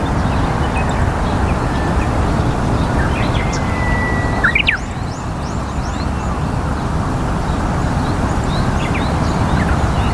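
Steady low background rumble with small birds chirping over it on and off, and a held whistled note and a brief louder call about halfway through.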